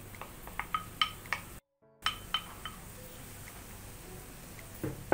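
Light ringing clinks against a frying pan, about eight in the first three seconds, as gram flour is tipped from a bowl into oil and a wooden spatula starts stirring it in. A soft knock comes near the end.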